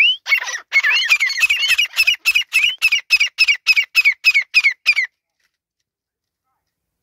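Grey francolin calling: a loud, rapid series of short, high, repeated notes, settling into about four a second, that stops abruptly about five seconds in.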